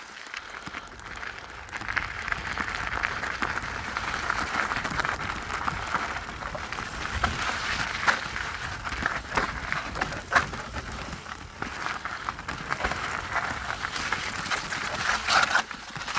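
Canyon Strive mountain bike riding down a rough, stony trail: a steady crackling of tyres over loose stone and rattling of the bike, getting louder about two seconds in, with several sharp knocks from hits on rocks.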